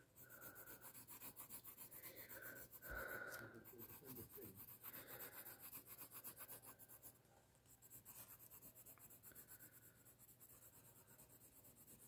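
Faint scratching of a graphite pencil shading on paper: quick back-and-forth strokes at roughly three a second, pausing briefly about seven seconds in.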